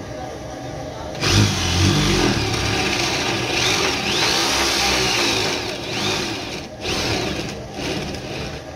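Drill press motor running, then its red Forstner bit biting into a wooden board about a second in, with a loud, steady cutting noise as it bores a round hole and throws out chips. The cutting eases off briefly twice near the end.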